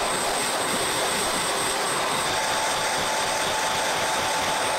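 Steady rushing air from a small electric blower, with a thin high whine over it; it starts and cuts off abruptly.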